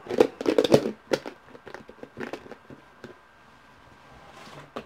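Handling noise: a quick cluster of knocks and clicks in the first second, then scattered single clicks as things are moved and picked up.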